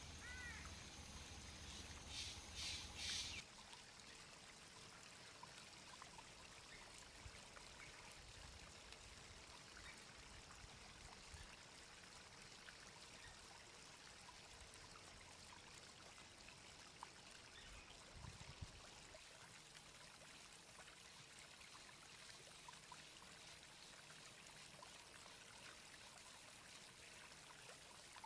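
Near silence: faint, steady outdoor hiss. In the first few seconds a short chirp and a brief high, pulsing sound are heard.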